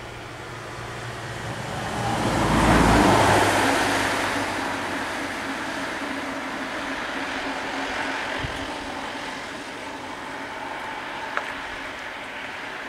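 A motor vehicle passing on the road: engine and tyre noise swell to a peak about three seconds in, then fade slowly to a steady rumble. A short click comes near the end.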